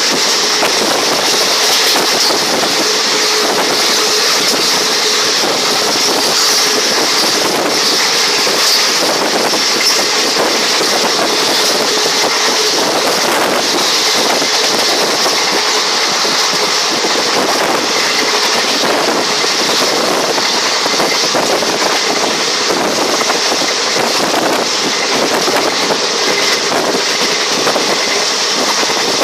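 A train running along the rails, heard from on board: a loud, steady rolling noise with a hiss of rushing air over it.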